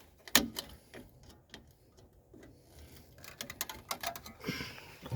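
Scattered sharp clicks and taps of drum brake hardware and hand tools being handled: one loud click about half a second in, then a quick run of lighter clicks about three and a half seconds in, and a brief scrape near the end.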